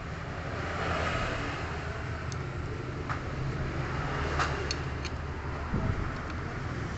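Honda Karisma's single-cylinder four-stroke motorcycle engine running steadily at idle, with a few light clicks about halfway through.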